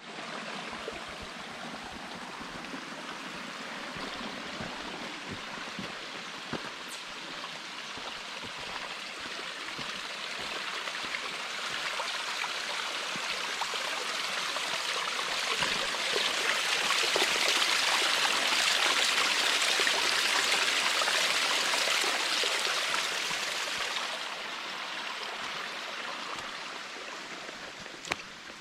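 Creek water running in a steady hiss that grows louder toward the middle and drops off fairly sharply about three-quarters of the way through.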